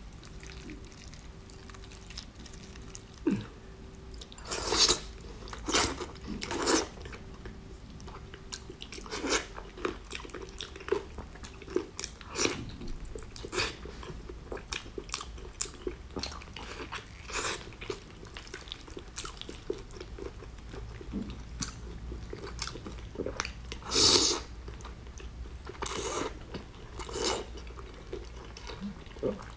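Close-up eating sounds of a person biting into and chewing braised pork knuckle. There are irregular sharp bites and mouth sounds throughout, the loudest a few seconds in and again past the middle.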